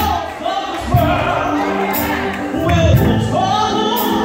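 A man sings a gospel solo into a handheld microphone, amplified through a sound system, over instrumental backing with held low notes and a regular low beat.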